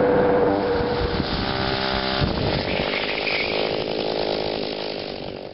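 Two-stroke chainsaw engine driving a homemade motorized bicycle through a chain and jackshaft, running steadily. About two seconds in the sound changes, and the engine then grows steadily quieter until it cuts off abruptly at the end.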